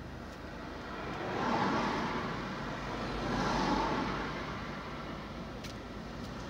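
Two oncoming cars passing close by one after the other, each a swell of tyre and engine noise that rises and fades, heard from inside a car over a low steady hum.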